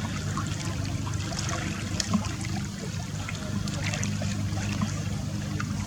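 Small waves lapping and trickling at the water's edge, many little splashes over a steady low hum.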